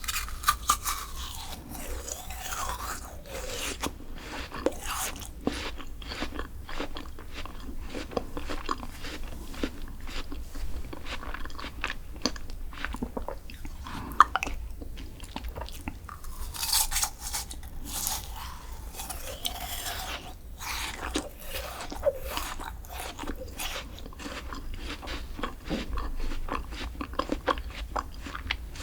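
Close-miked eating sounds: crisp crunching bites and chewing of a sweet dessert, a steady run of sharp crackles throughout.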